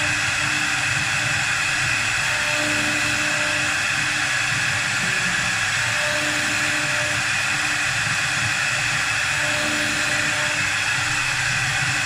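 CNC wood lathe running: a steady noise of the spindle and cutter working the spinning wood, with a hum that comes and goes about every three and a half seconds.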